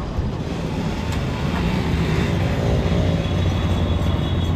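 Steady low engine rumble, growing a little louder about two seconds in.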